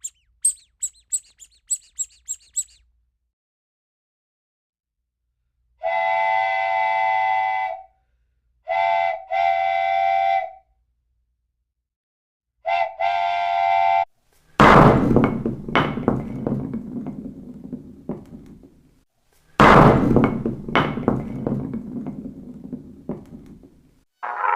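A string of separate sound effects: about seven short, high chirps, then three blasts of a pitched whistle-like horn, then two loud crashes, each ringing away over a few seconds.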